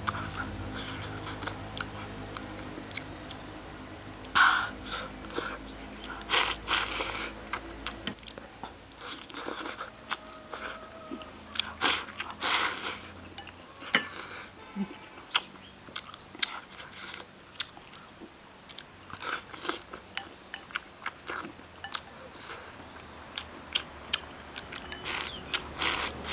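A person eating close to the microphone: irregular chewing and biting of pork trotter, potato and rice, with scattered sharp clicks of chopsticks against the bowl.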